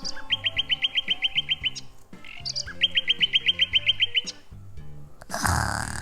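Two trills of rapid bird-like chirps, about nine a second, over background music, followed by a short burst of noise near the end.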